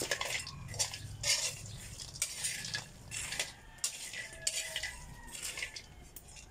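A metal spoon stirring dried cacao beans in a black metal pan: repeated scraping strokes, irregular at about two a second. The beans are being dry-roasted and kept moving so they brown evenly.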